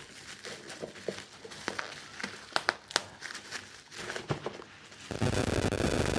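Packaging being handled during an unboxing: scattered small clicks and crinkles, then a louder, continuous crinkling rustle from about five seconds in as the wrapping is worked open.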